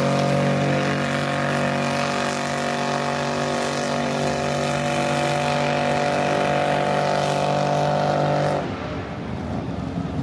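Lifted mud truck's engine held at high, steady revs as it churns through the mud pit. About eight and a half seconds in, the revs drop suddenly to a lower, rougher running.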